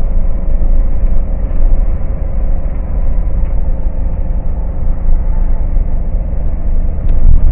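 Car cruising on a concrete highway, heard from inside the cabin: a steady low rumble of tyres and engine, with a couple of sharp clicks near the end.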